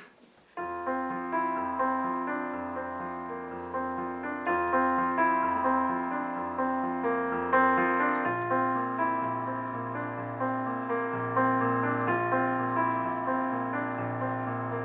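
Piano intro to a song: a gentle, steady pattern of struck chords over held bass notes, starting about half a second in, with the bass moving to a new note twice.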